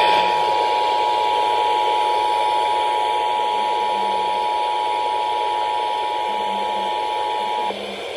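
Emergency Alert System two-tone attention signal: two steady tones sounding together, held for about eight seconds and cutting off near the end, over a steady hiss of radio static.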